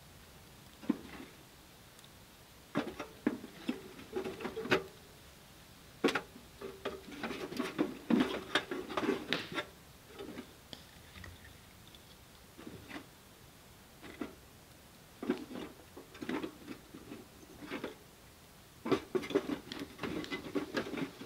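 Hands working at a small portable wood stove: bursts of dry, crackly rustling broken by sharp clicks and light knocks, stopping and starting several times.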